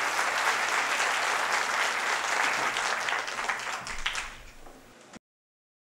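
Audience applauding with dense clapping, thinning out over the last second or so and then cut off suddenly.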